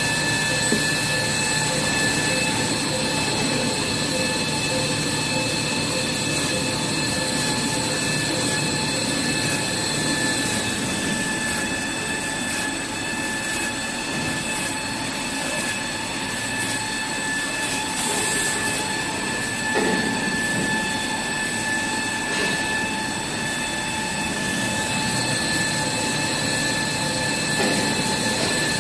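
Toilet paper converting machinery running steadily, a constant mechanical din with several high, steady whines. One of the higher whines drops out about ten seconds in and comes back near the end.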